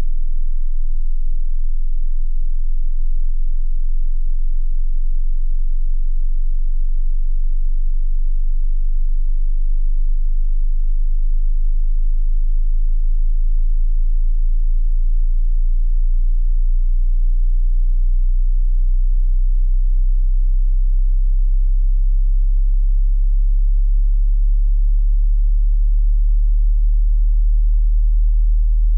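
A steady, very low-pitched pure sine tone below about 50 Hz, a hearing-test tone at the bottom of the audible range.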